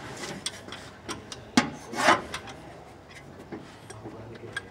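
Work sounds on a car engine: scattered clicks of tools and parts being handled, a sharp knock about a second and a half in, and a short scraping rub just after.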